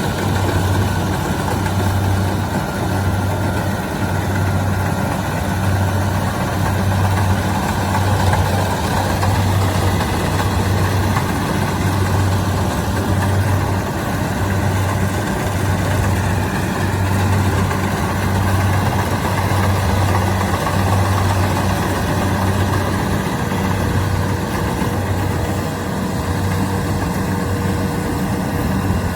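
Kubota DC-70 Plus combine harvester's diesel engine running steadily, with a low hum that throbs about once a second.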